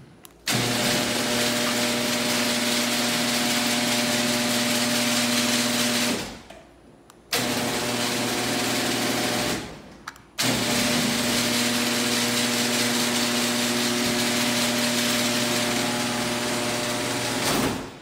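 Genie garage door opener motor running and driving the door, a steady hum with rattle. It stops twice for about a second and starts again, then runs on until it cuts off near the end.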